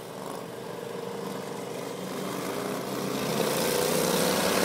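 Racing lawn mower engines running hard on an ice track, growing steadily louder as they approach.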